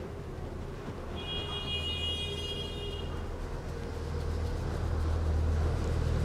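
Low steady rumble of road traffic, growing louder in the second half. A high steady tone sounds for about two seconds, starting about a second in.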